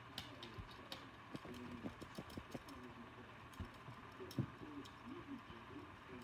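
Light, irregular taps and clicks of a kitten's paws and claws on a hardwood floor as it pounces at a wand toy.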